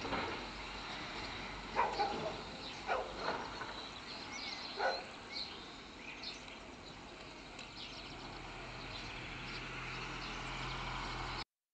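Outdoor ambience at a rooftop stork nest: faint small-bird chirps over a steady background noise, with a few short, louder sounds in the first five seconds. The audio cuts out suddenly near the end.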